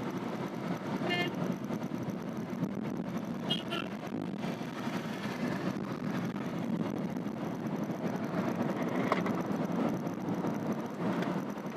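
Steady road, engine and wind noise heard inside the cabin of a Renault Triber AMT driven at about 60 to 100 km/h, an even rumble with no change. A brief high tone sounds about a second in.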